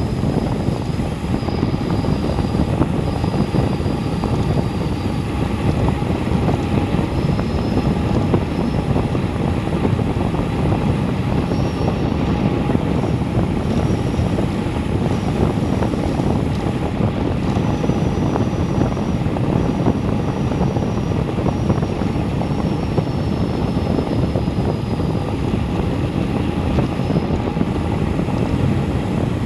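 Steady wind rumbling over the camera microphone on a bicycle coasting downhill at about 30 mph. A faint high-pitched whine comes and goes on top.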